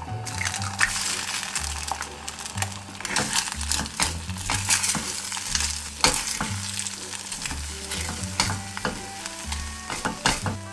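Eggs sizzling in a hot nonstick frying pan while a silicone spatula stirs and scrambles them, with frequent short scraping strokes against the pan. Background music with a low bass line plays underneath.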